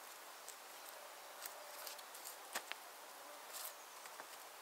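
Wattle weaving: thin green wooden rods rubbing and clicking against each other and the upright stakes as they are pushed into the weave. A few faint rustles and clicks, the sharpest about two and a half seconds in.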